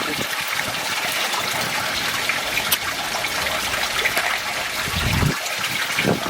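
Koi pond water running and trickling steadily, with a brief low rumble about five seconds in.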